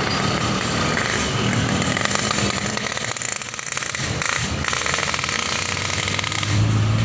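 Tour bus engine running as the bus drives past, amid road traffic noise; a low engine hum swells louder near the end.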